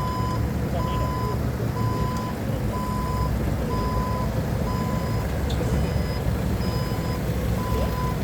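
Forklift reversing alarm beeping steadily, about one beep a second, over the forklift's engine running.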